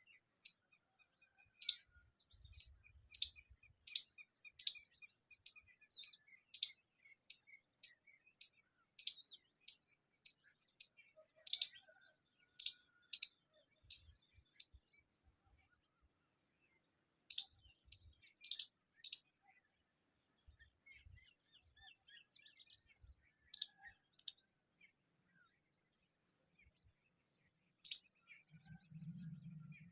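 Bird chirping: a run of short, high-pitched chirps about two a second, stopping about fifteen seconds in, then a few scattered chirps later on.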